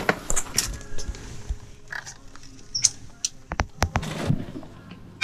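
Scattered sharp clicks and taps of packaged goods being handled on shop shelves, several coming close together about three and a half to four seconds in.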